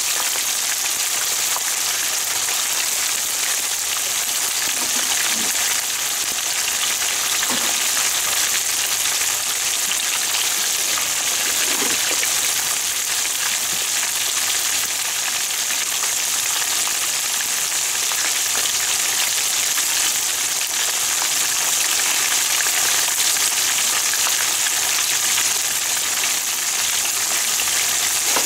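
Fugu (pufferfish) karaage pieces deep-frying in a pan of hot oil: a steady, dense sizzle of bubbling oil.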